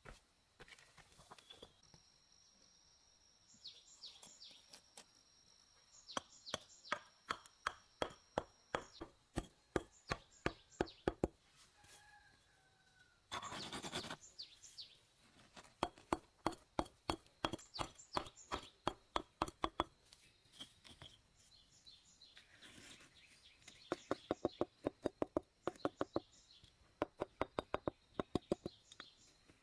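Rapid chopping blows, about four a second, in three separate runs, with a short rushing burst of noise between the first and second runs. A steady high tone sounds behind the first run.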